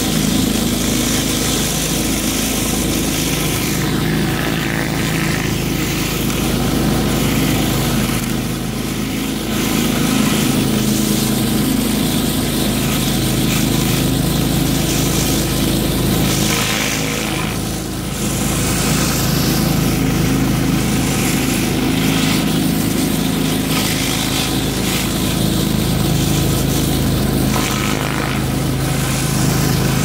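Pressure washer running steadily, its engine drone under the continuous hiss of water jets from a Whisper Wash Classic surface cleaner's spinning four-nozzle bar on concrete.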